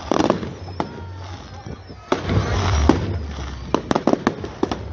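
Fireworks going off: sharp bangs with a dense crackling burst about two seconds in, then a rapid cluster of cracks near the end.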